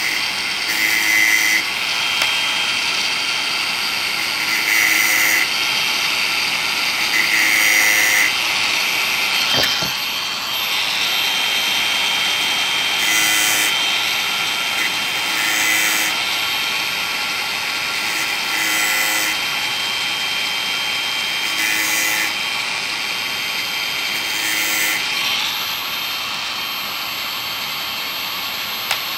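Makita DGA504 cordless angle grinder running steadily at full speed with a high whine, its 115 mm stainless-steel cutting disc touching the chainsaw chain's cutters in short grinding bursts every few seconds, sharpening the chain tooth by tooth.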